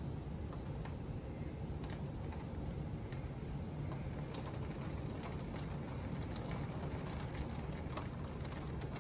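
Heavy thunderstorm rain falling steadily, with scattered sharp ticks of drops striking a hard surface close by.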